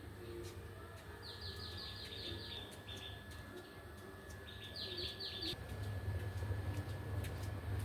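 A small songbird singing two quick trills of short, high, descending notes, the second about five seconds in. A low rumble grows louder under it in the second half.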